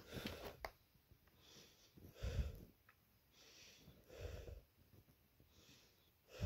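A person breathing close to the microphone, about one breath every two seconds: a soft hissy inhale, then a louder puffing exhale.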